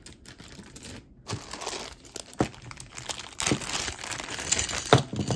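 Packaging crinkling and rustling as jewelry pieces are unwrapped and handled, with a few sharp clicks.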